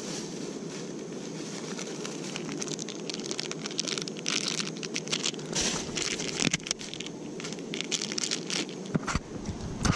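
Close rustling and crackling handling noise that grows busier about three and a half seconds in, over a steady low rushing.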